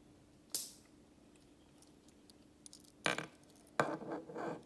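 Small metal clicks and clatter of a Leatherman Micra keychain multitool being opened and its parts unfolded: one sharp snap about half a second in, a few faint ticks, then a run of clicks and rattling near the end.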